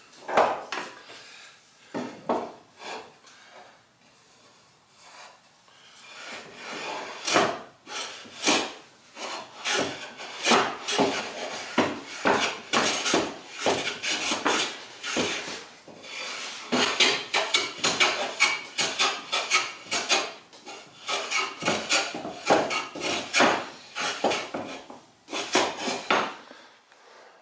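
Wood River No. 7 jointer plane taking repeated strokes along the edge of a wooden board, each pass a short scraping hiss of the blade cutting a shaving, with a brief lull a few seconds in. The plane's iron is sharp straight out of the box.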